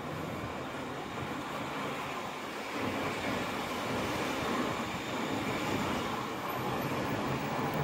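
Steady rumble of passing vehicles, with no single event standing out.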